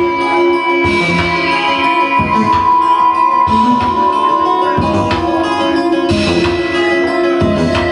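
Live experimental music: long held drone tones over uneven low percussive hits.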